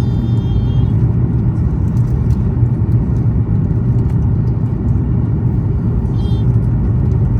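Steady, loud cabin rumble of a Boeing 737 MAX 8 in flight: its engines and the airflow over the fuselage, heard inside the cabin as an even low roar.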